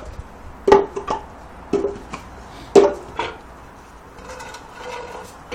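Sharp knocks and clanks, each with a short ring: three loud strikes about a second apart, each followed by a lighter one, from metal and wood being worked on a boat trailer.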